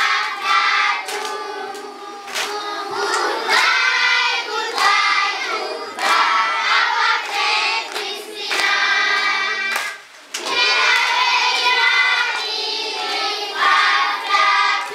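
A group of schoolchildren singing a song together, clapping their hands along with it. The singing breaks off briefly about ten seconds in, then starts again.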